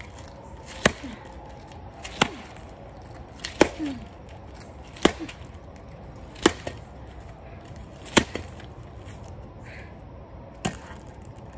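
Baseball bat smashing a pumpkin lying on the ground: seven hard blows, about one every second and a half, the last after a slightly longer gap.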